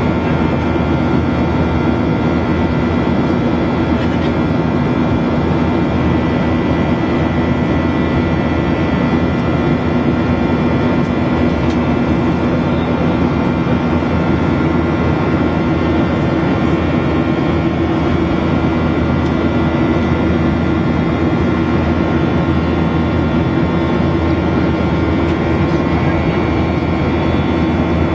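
Boeing 737-800 cabin noise in flight: its CFM56-7B jet engines and the airflow give an even, loud drone with a few steady tones held above it.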